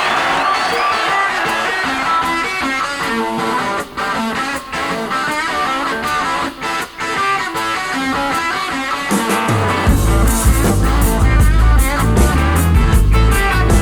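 Rock music with electric guitar; bass and drums come in about ten seconds in.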